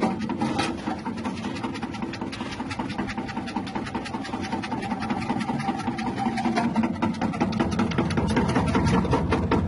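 Electric chip-slicing machine running: the hum of its 180-watt motor under a fast, even clatter.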